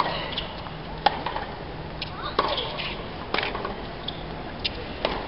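Tennis rally on a hard court: sharp pops of the ball off the rackets and its bounces, one knock every second or so, about six in all, with a few short squeaks between.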